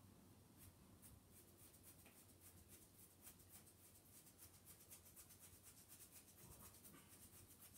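Faint, quick dabbing of a paintbrush on paper, about five or six light scratches a second.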